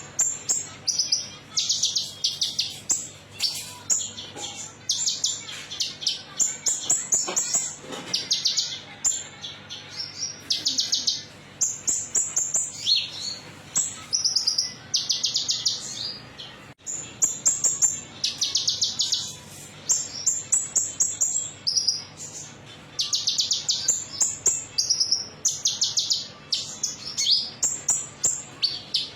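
Konin songbird singing a rapid, high, metallic chirping song in repeated short trilled phrases with brief pauses between them: a lure recording played to prompt caged birds to sing.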